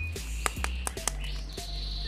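Background music with low, steady bass notes, bird-like chirps over it and several sharp clicks.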